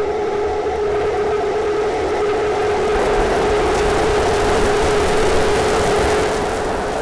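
Starship SN9 prototype's three Raptor rocket engines firing at liftoff: a loud, steady rush of engine noise that grows fuller about three seconds in.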